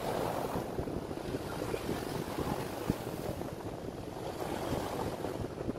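Steady rushing background noise, like wind on the microphone, with faint small clicks and taps of a small part being handled in the fingers; one sharper tap about three seconds in.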